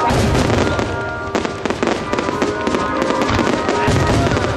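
Fireworks bursting in a music-synchronised display: several deep booms over continuous crackling, with music playing over the venue's loudspeakers.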